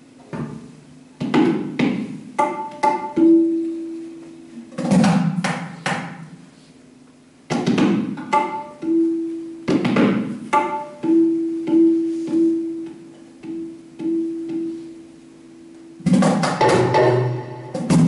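Tabla played in short phrases of sharp strokes: the small drum rings on a clear pitch and the large bass drum gives deep strokes, with brief pauses between phrases and a busier run near the end.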